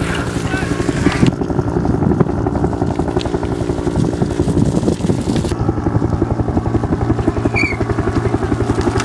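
A motor running steadily with a fast, even pulse.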